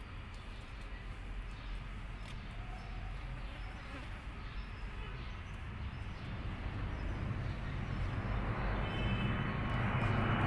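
Steady outdoor background noise, a low rumble with a hiss over it, growing louder toward the end.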